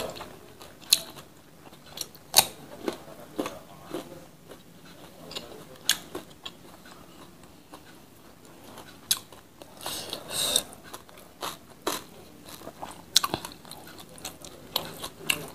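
Close-miked chewing and mouth sounds of a person eating by hand: irregular short wet clicks and smacks, with a louder stretch of chewing about ten seconds in.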